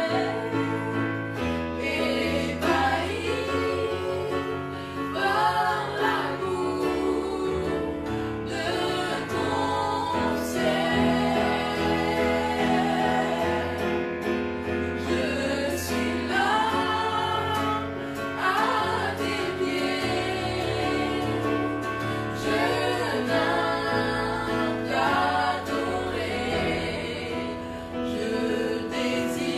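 A woman and children singing a gospel worship song together in a small group, accompanied by held chords on a Casio electronic keyboard.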